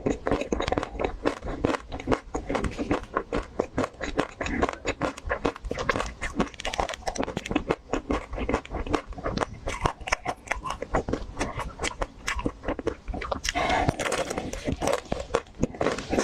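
Close-miked fast eating of a crunchy ice cream bar: rapid crackling bites and chewing, many crunches a second, a little denser about three-quarters of the way through.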